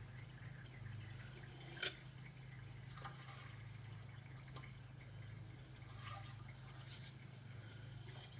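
A steady low hum with one sharp click about two seconds in and a few faint knocks and clicks after it, the small sounds of handling things during an oil change.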